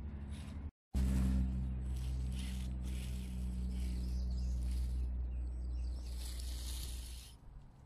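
Small electric RC crawler (Traxxas TRX-4M chassis) driving, its motor and geared drivetrain giving a steady low drone with a faint high whine, while the tyres scrabble and crunch over roots and ground cover. The sound drops out completely for a moment just under a second in, and the motor stops a little before the end.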